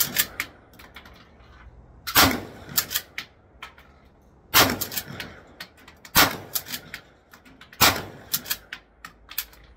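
12-gauge pump-action shotgun firing slugs: four loud shots, the first pair about two and a half seconds apart and the rest about a second and a half apart. Each shot is followed by smaller clacks as the pump is worked to chamber the next round.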